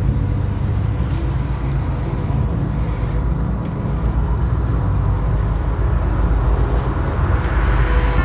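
Small electric RC off-road truck driving: its motor and gearbox whine steadily over a heavy low rumble.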